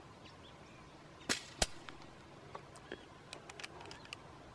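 A .22 PCP air rifle fires one shot about a second in, a sharp crack followed a third of a second later by a second sharp crack, then a few faint light clicks.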